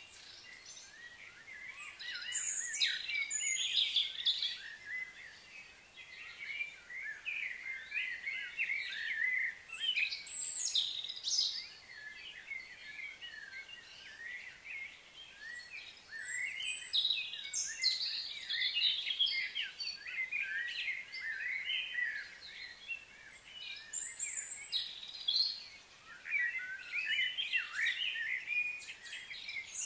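Birds chirping and singing, many quick high calls overlapping in busy bouts a few seconds long, with short quieter spells between.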